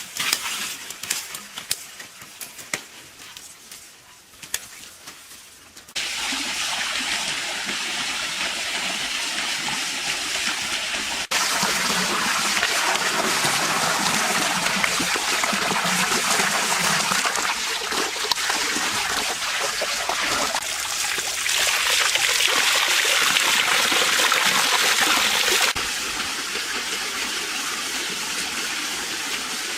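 A few scattered sharp knocks and clicks, then about six seconds in a steady rush of water pouring and splashing: a built pond's waterfall running. Its level jumps abruptly a few times.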